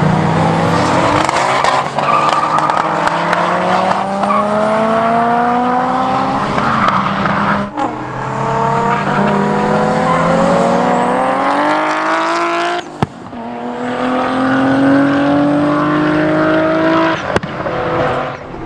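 Nissan Skyline GT-R engines under hard acceleration. The engine note climbs steadily in pitch through three long pulls, each broken off suddenly before the next starts lower, like upshifts.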